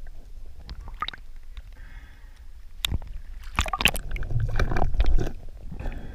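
Water splashing and bubbling around an underwater camera as a spearfisher dives with a speargun, with a few sharp clicks and knocks and a louder churning stretch from about three and a half to five seconds in.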